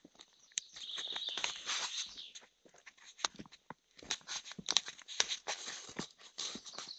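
Footsteps crunching over the dry leaf litter and dirt of a forest path, an uneven run of soft crunches and clicks.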